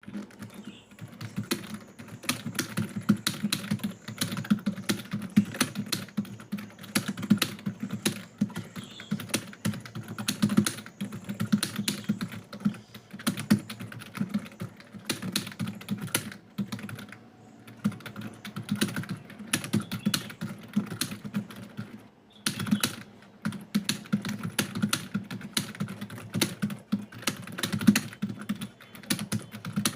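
Computer keyboard being typed on fast during a typing test: a rapid, continuous stream of key clicks, with a couple of short pauses partway through.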